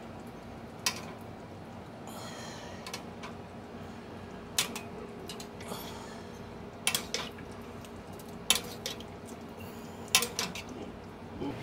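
A metal spoon clinks and scrapes against a roasting pan as pot roast, potatoes and carrots in broth are stirred and spooned around. There are about a dozen sharp, irregular clinks over a faint steady hum.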